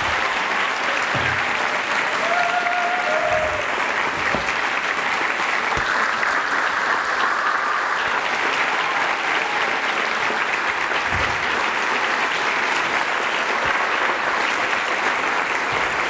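Large audience applauding steadily, a dense, even clapping that follows the end of a keynote speech.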